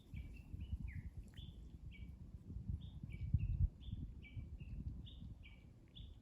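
Japanese bush warbler calling: a quick run of short notes, each dropping in pitch, two or three a second. A low rumble lies underneath, loudest about halfway through.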